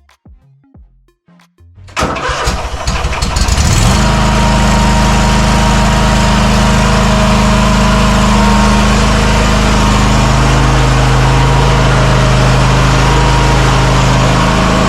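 A small petrol engine, likely the mower's Kohler, cranks and catches about two seconds in, then runs steadily and loudly. A few faint clicks come before it starts.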